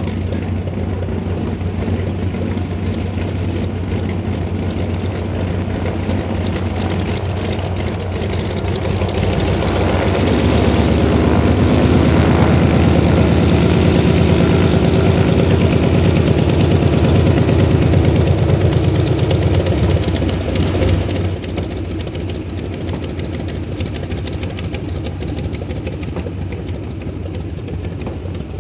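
Grumman F3F Gulfhawk biplane's radial engine and propeller running steadily. It grows louder and fuller for about ten seconds in the middle, then drops back to its earlier level.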